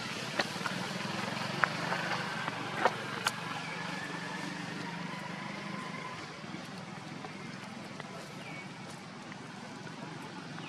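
A steady low engine hum, like a motor vehicle running, with several sharp clicks in the first few seconds.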